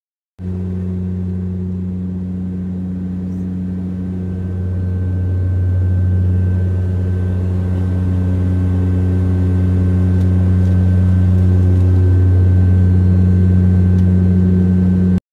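Steady drone of a small propeller plane's engines and propellers heard inside the cabin in flight: a deep, even hum with a faint high whine above it. It starts about half a second in and grows a little louder about five seconds in.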